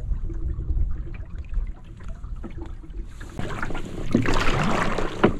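Low wind rumble on the microphone, then from about three seconds in water rushing and splashing as an oar is pulled through it alongside a sailing canoe, with small knocks and one sharp knock near the end.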